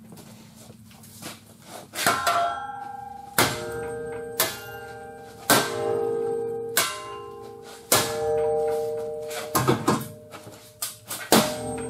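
Hammer blows on the car's front unibody structure while it is chained to the frame straightener, about nine strikes a second or so apart starting about two seconds in, each one ringing like a bell afterwards.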